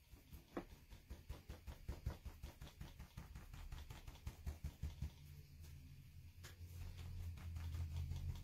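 Wadded paper towel dabbing acrylic paint onto paper on a tabletop: quick soft taps, about four a second, then a low steady sound takes over near the end as the dabbing gives way to rubbing.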